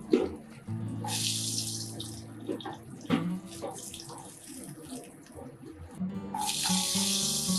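Hot oil sizzling in a nonstick wok as fried eggplant pieces are lifted out with a wooden spatula, with sharp knocks of the spatula against the pan near the start and about three seconds in. About six seconds in, a loud burst of steady sizzling as sliced bitter gourd is dropped into the hot oil.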